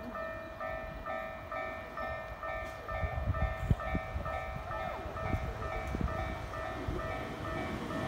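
Japanese electronic level crossing alarm ringing, alternating between two pitches at about two tones a second. Under it, the low rumble of an approaching train builds from about three seconds in.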